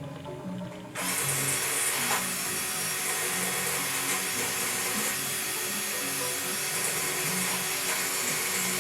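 A power drill running steadily, starting suddenly about a second in, as used for deburring aircraft wing parts. Background music with changing low notes plays underneath.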